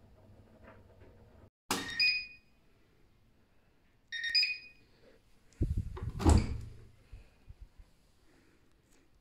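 Siemens iQ500 front-loading washing machine: two short electronic beeps, each with a click, then a heavy thud and rattle typical of its porthole door being opened or shut.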